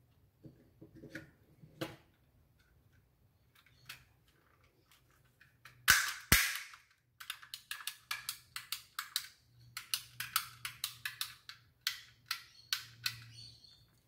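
Plastic power window switch unit being handled: two loud sharp snaps about six seconds in as the housing clips together, then a run of quieter clicks, about three a second, as the rocker switches are pressed over and over.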